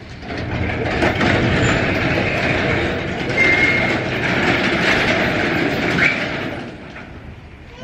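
Loud rushing vehicle noise that swells about a second in and fades near the end, with a brief high squeal in the middle and a short rising squeal about six seconds in.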